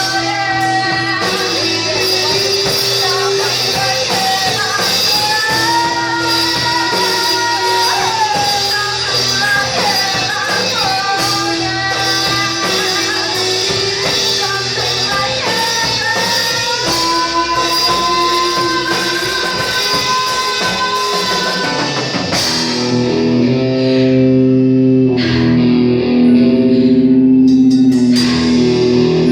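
Rock music with guitars and a drum kit: a sliding melodic lead over steady chords, changing about three quarters of the way through to long held chords.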